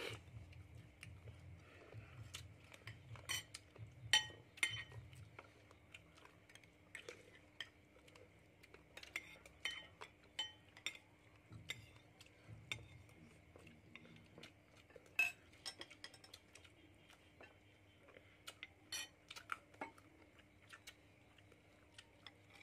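Metal spoons and forks clinking and tapping against ceramic bowls and plates as several people eat, in irregular sharp clinks, over a faint steady hum.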